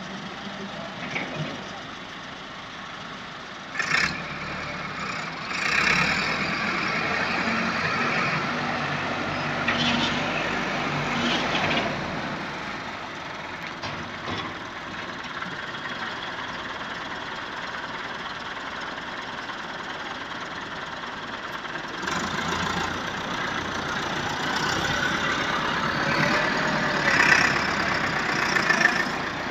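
Massey Ferguson 385 tractor's diesel engine running while working a front loader, growing louder in two long stretches as it pulls harder, with a couple of sharp knocks about four and six seconds in.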